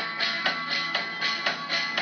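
Guitar music: a guitar strummed in a steady rhythm, about four strokes a second.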